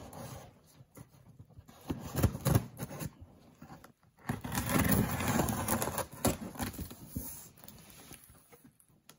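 Cardboard box being cut and opened by hand: knocks and scrapes of cardboard and packing tape, with a longer continuous scraping stretch about halfway through.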